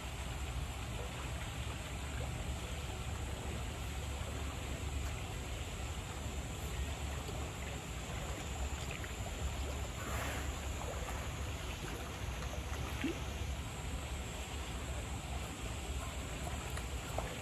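Steady rush of running water in a sea lion pool: an even, constant wash with no distinct events.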